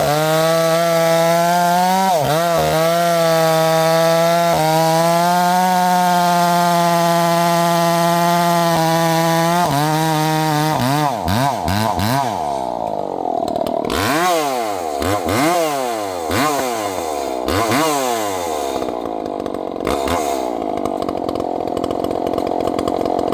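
Two-stroke chainsaw held at high revs while cutting firewood, pitch steady apart from a few brief dips. After about eleven seconds the engine revs up and down over and over, about once a second.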